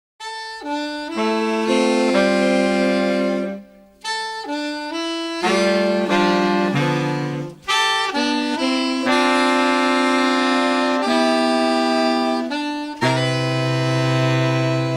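A saxophone ensemble playing slow, sustained chords in long phrases, with short breaks about four and about eight seconds in.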